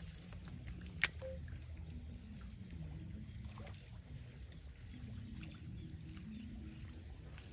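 A lure being cast and worked across the surface of a canal: a single sharp click about a second in, then faint water noise over a low steady rumble.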